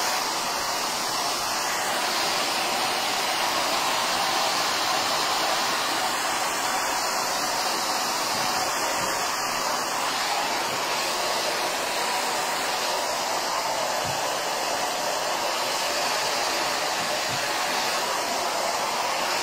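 Handheld hair dryer running steadily at full power, blowing on a canvas of wet acrylic paint.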